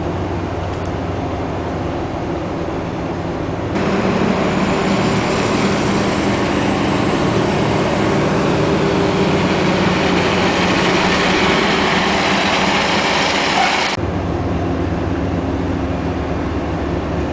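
Steady industrial machinery rumble and hum of a coal-loading ship loader and conveyor system. A louder, hissier stretch with a faint rising high whine starts abruptly about four seconds in and cuts off about ten seconds later.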